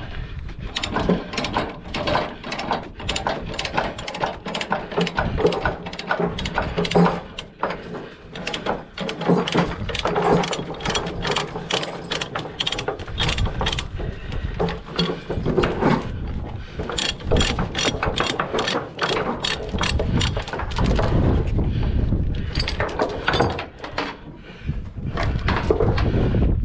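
Ratchet chain binder being worked on a load chain: a rapid, repeated clicking of the pawl with metal rattle from the chain.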